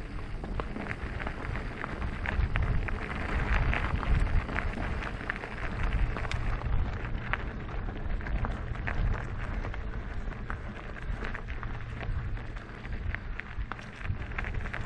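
Wind rumbling on the microphone of an e-mountain bike as it rides, with a steady scatter of clicks and crackles from the tyres rolling over a rough surface.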